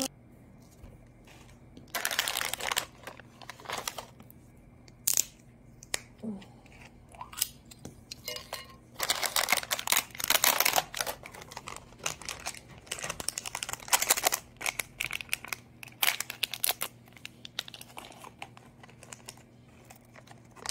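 Foil medicine sachets crinkling as they are handled, in irregular bursts of a second or two with a few sharp clicks between.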